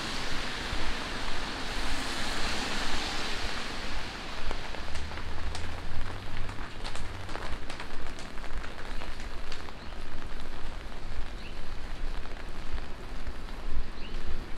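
Steady rain falling on a wet city street. The hiss of car tyres on the wet road fades over the first few seconds, and scattered sharp drip ticks follow.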